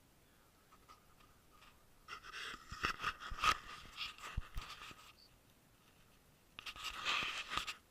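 R7 Replay paintball marker firing two quick strings of shots, muffled. The first string has about half a dozen sharp cracks over two seconds. The second, shorter string comes near the end.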